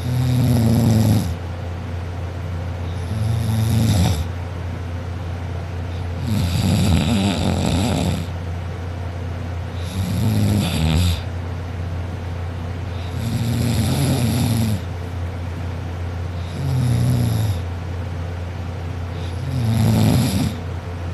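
A sleeping person snoring, fairly loud: about seven snores, one every three seconds or so, each lasting a second or two, over a steady low hum.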